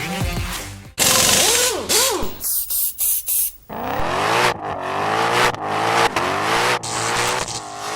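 Car engine revving in several blips, its pitch rising and falling repeatedly, with abrupt cuts between the sounds.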